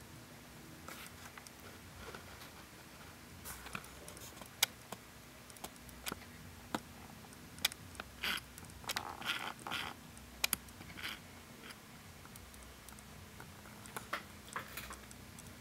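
Wave machine's motorised base running with a faint steady hum, with scattered light clicks and small rattles from the rocking mechanism, busiest around the middle and again near the end.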